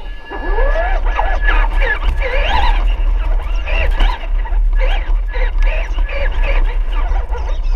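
Busy crowd of many overlapping voices, chattering with high excited shouts and squeals, over a steady low rumble.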